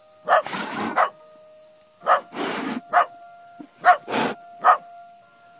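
Italian greyhound barking: about six short, sharp barks a little under a second apart, with rougher, noisy sounds between some of them.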